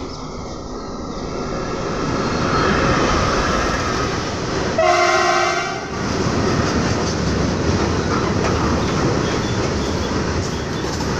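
An Indian Railways WDG4G diesel freight locomotive passes close by, rising in volume over the first few seconds and sounding its horn once for about a second, about five seconds in. A long rake of freight wagons then rolls past with a steady rumble and wheel clatter.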